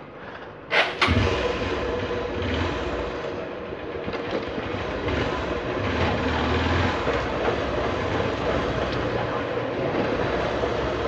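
Two sharp clicks, then a motor vehicle engine running close by: a steady rumble with noise that comes in abruptly about a second in and carries on without a break.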